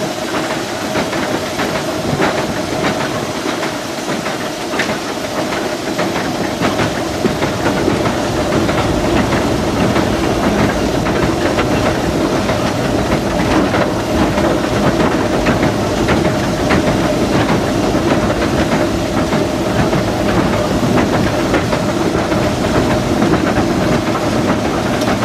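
Inside the cab of a 1925 Baldwin steam locomotive under way: a steady hiss of steam over the rattle and clank of the running gear and the clicking of wheels over rail joints. The running sound grows a little louder and deeper after the first several seconds.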